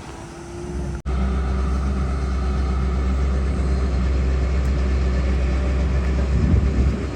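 Heavy diesel engine running steadily close by, a deep even hum. A brief break about a second in, after which it is louder, and a short swell in level near the end.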